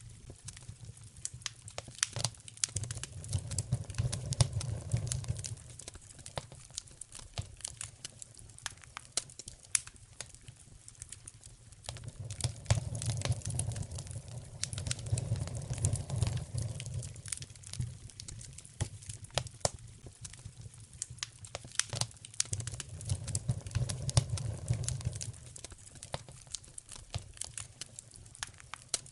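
Wood fire in a fireplace crackling, with frequent sharp pops and snaps. A low rumble swells and fades three times.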